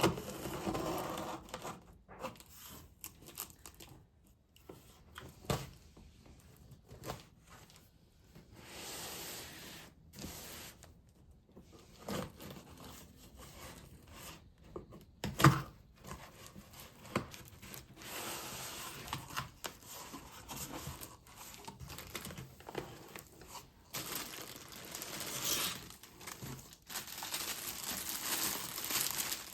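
Close handling noises: paper or plastic packaging rustling and crinkling in several stretches, with scrapes and scattered sharp clicks and knocks.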